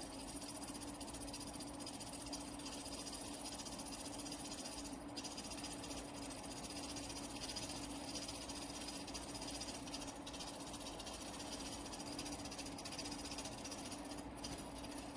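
GE Profile inverter window air conditioner running: a steady hiss of moving air with a constant low hum.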